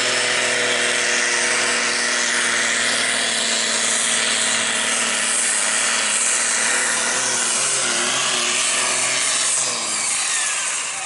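A John Deere pulling tractor's 6.7-litre diesel engine running flat out under load as it pulls the sled down the track. It is loud and steady, easing off a little near the end.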